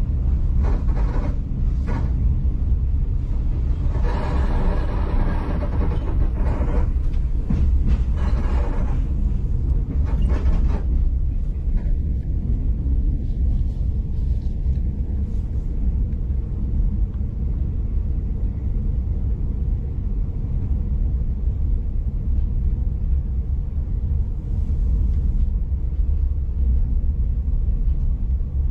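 Steady low rumble of a V/Line passenger train running along the track, heard from inside the carriage. Short surges of louder, broader noise come and go in the first ten seconds or so.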